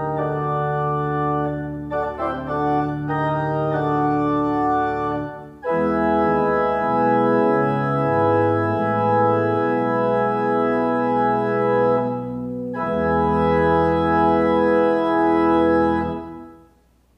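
Church organ playing full sustained chords, with short breaks about five seconds in and about twelve seconds in, then a final held chord that dies away just before the end.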